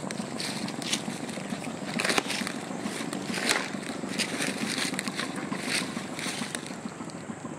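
Footsteps crunching and crackling through dry forest leaf litter and twigs, an irregular step every half second to a second.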